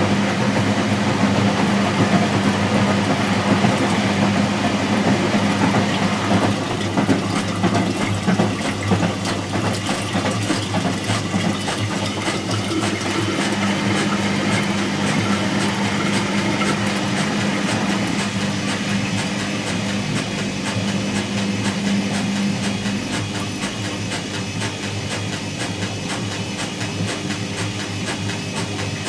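Whirlpool AWG023 H-axis top-loading washing machine running, a steady motor hum with a fast rattle over it; the hum changes pitch partway through.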